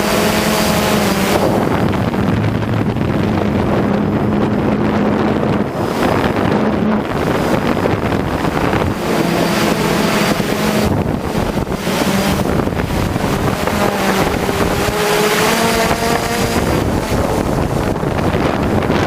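Hexacopter's electric motors and propellers humming, their pitch gliding up and down as the motor speeds change, under heavy wind buffeting the microphone.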